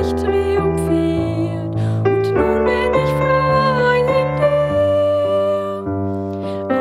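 Slow worship song: sustained piano chords changing every second or so, with a woman's voice singing long held notes above them.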